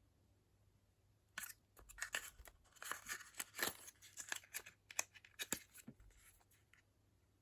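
Rustling, crinkling and clicking of packaging being handled: a quick run of sharp crackles and small knocks starting about a second and a half in and tailing off near the end.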